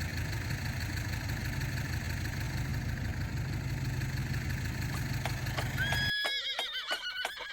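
An engine running steadily for about six seconds, then cut off abruptly by a horse whinnying, a high call that wavers and falls in pitch.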